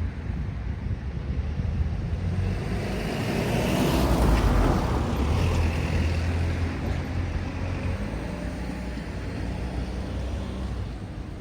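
A motor vehicle driving past with a low engine drone, growing louder to a peak about four to five seconds in and then fading away.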